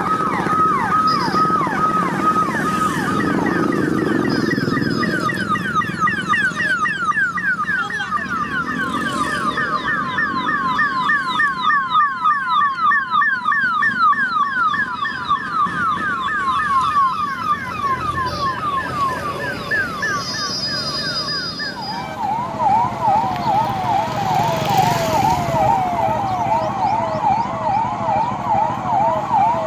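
Police vehicle sirens in a yelp, rapid repeated falling sweeps, over a low rumble of vehicle engines. About 22 seconds in, the loudest siren gives way to a lower-pitched, slower yelp.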